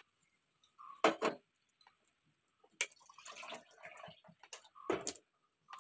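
Kitchenware being handled: a handful of sharp knocks and clicks, the loudest about a second in, with faint clattering between them.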